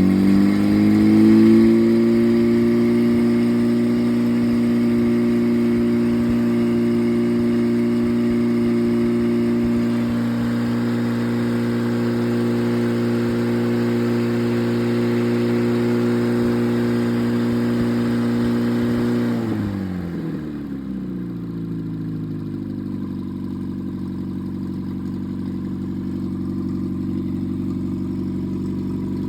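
Freshly rebuilt engine running with no muffler, so a little loud. It picks up speed over the first couple of seconds, holds a steady fast run, then drops back to a steady idle about twenty seconds in.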